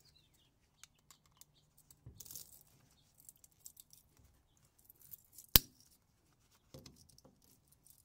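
Side cutters snipping through the copper windings of a ceiling fan motor's stator: scattered faint clicks and rustles, then one sharp, loud snip about five and a half seconds in and another near the end.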